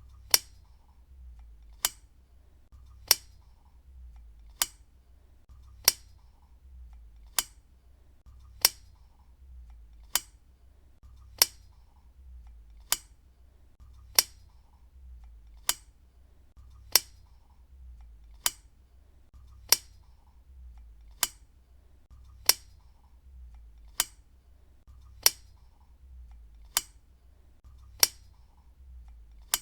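Desk lamp switch clicked on and off over and over, one sharp click about every second and a half, the clicks alternately louder and softer.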